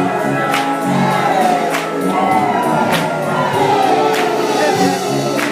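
Gospel choir singing with instrumental backing, with a sharp hit on the beat about every second and a quarter.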